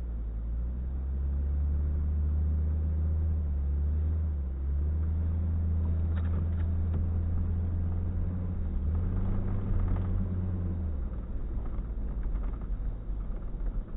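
A motor vehicle's engine running with a low, steady hum whose pitch steps up twice before it drops away near the end, leaving a rough background noise.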